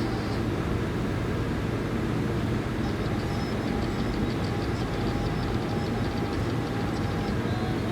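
Steady static noise heard on a phone call on an Umidigi F2, a constant hiss and rumble with faint thin tones in it, the call sound fault of this phone.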